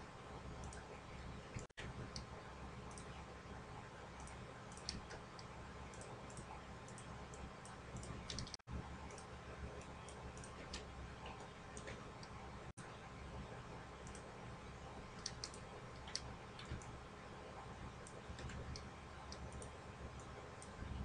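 Faint computer mouse clicks, scattered and irregular, over a steady low hum.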